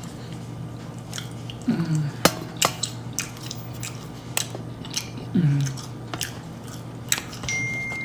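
Close-up mouth sounds of someone eating Chick-fil-A food: chewing with loud wet lip smacking, many sharp irregular clicks, and twice a short falling hum.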